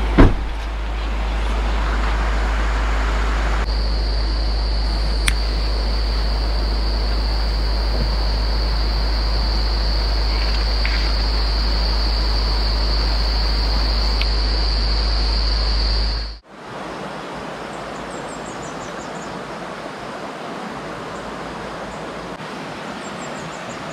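Steady rush of a shallow river with a deep constant hum under it, and a steady high insect trill for most of the first two-thirds. A sharp click at the very start. About sixteen seconds in the sound changes abruptly to a quieter steady river rush with faint bird chirps.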